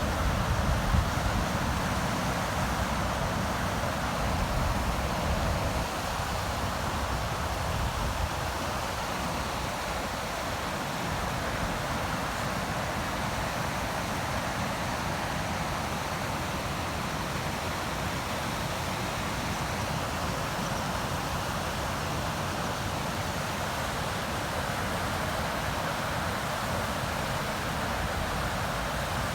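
River water rushing steadily. Low buffeting from wind on the microphone in the first few seconds.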